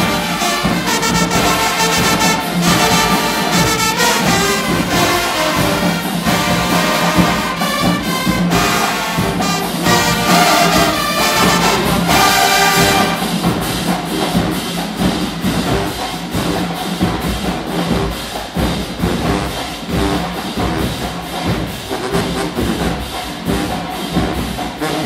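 Marching band playing a loud brass-heavy tune with sousaphones, trumpets, trombones, saxophones and clarinets over drums. About halfway through, the horns largely drop out, leaving mostly a steady drum beat.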